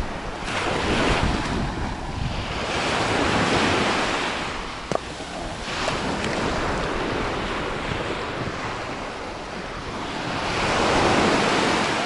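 Small surf breaking and washing up a sandy beach, the rush of water swelling and fading several times, loudest near the end, with wind buffeting the microphone.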